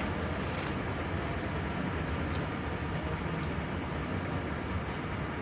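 Steady low rumbling background noise, engine-like, with an even hiss and a few faint clicks.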